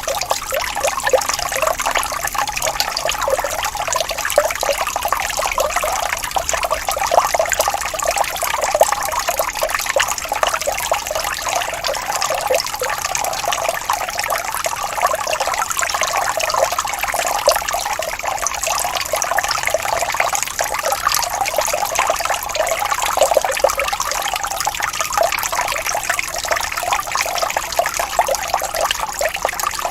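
Small waterfall: water splashing and trickling steadily over rocks, an even churning with many fine splashes and little low end.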